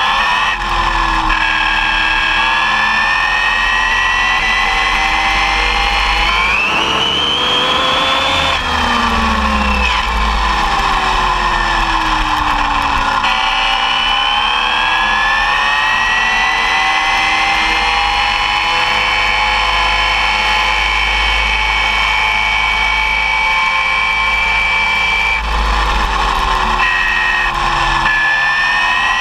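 Arrma Typhon 6S RC buggy running at speed, its brushless electric motor and gears whining in a pitch that rises and falls with the throttle. It climbs about six seconds in, drops a few seconds later, climbs again a little before halfway and dips near the end. Tyre and wind rumble sit underneath, heard from a camera mounted on the car.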